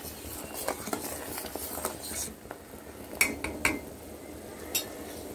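A metal spoon stirring boiling jaggery syrup in a steel pot, clinking against the pot several times over the steady bubbling of the syrup.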